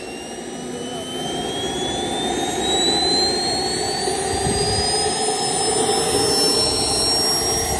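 Small turbine jet engine of a radio-controlled jet fighter spooling up: a high whine rises steadily in pitch over a rushing exhaust noise, growing louder for the first few seconds, then levels off.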